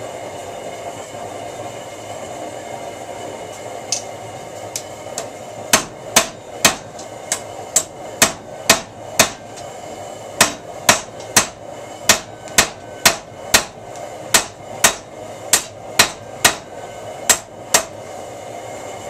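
Hand hammer striking a red-hot square steel bar laid across a bench vise. A few light taps come about four seconds in, then steady blows of about two a second with a short pause near the middle. Under it all runs the steady rumble of the blacksmith's forge.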